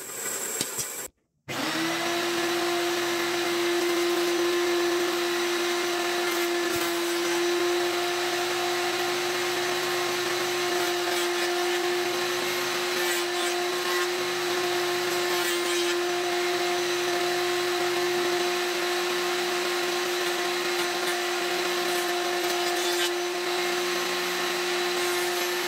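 Woodworking power tool, a band saw or planer, running steadily at a constant pitch. It starts just after a brief break near the start.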